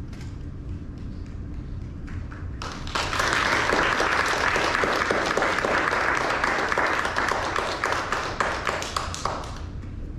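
Audience applauding: the clapping starts about two and a half seconds in, holds steady, and dies away shortly before the end.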